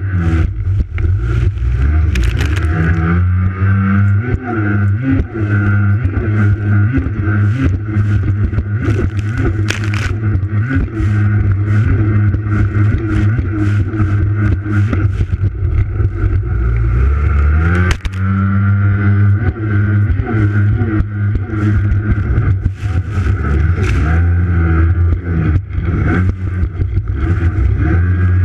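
Racing jet ski's engine running hard at speed, its pitch dipping and climbing back twice, about 3 and 18 seconds in, as the rider eases off and opens the throttle through turns. Water spray and wind hit the hull-mounted microphone as constant crackling hiss.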